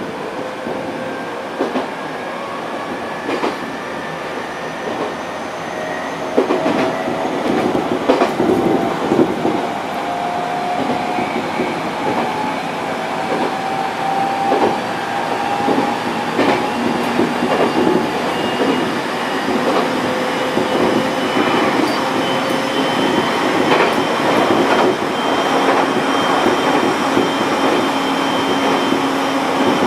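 701-series electric train running and gathering speed: the motor whine climbs slowly in pitch, over rumbling running noise, as the wheels click over rail joints more and more often.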